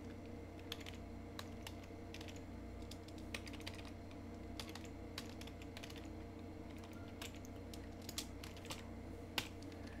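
Computer keyboard being typed on: irregular clicking keystrokes, some in quick runs and some spaced apart, over a steady low background hum.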